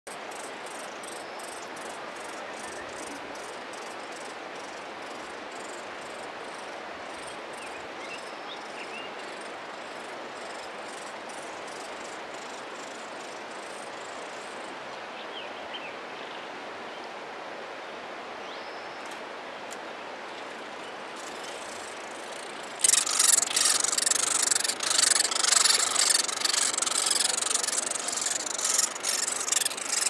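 Steady rush of running water. About 23 seconds in, Downy woodpecker nestlings in the tree cavity break into loud, rapid, raspy begging calls as food is brought to the nest.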